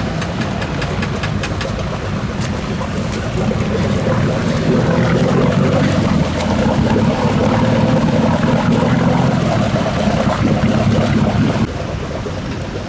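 Off-road 4x4's engine running steadily under load through a deep water crossing, with water sloshing and splashing around it. The engine eases off near the end.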